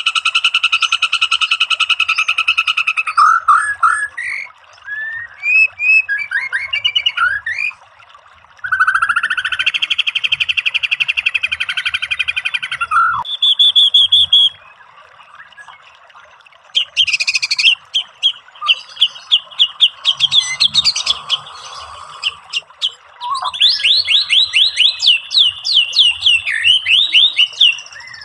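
White-rumped shama song packed with mimicked phrases: a harsh, evenly pulsed trill for about the first three seconds, then varied whistles and chatters with short pauses, and near the end a fast run of repeated sweeping notes.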